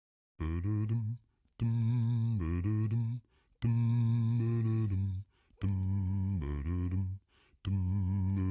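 Background music of low a cappella vocals, starting about half a second in and going in short phrases of a second or so with brief pauses between them.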